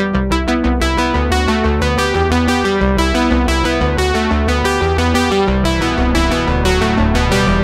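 Background music: quick, evenly pulsing chords over a sustained low bass line.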